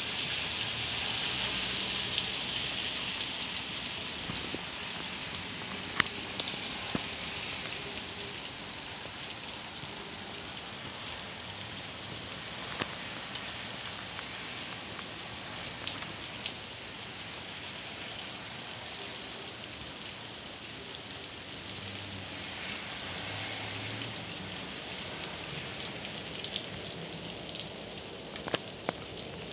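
Heavy rain falling steadily, with close drips ticking sharply now and then. In the first few seconds a passing car's tyres hiss on the wet street and fade.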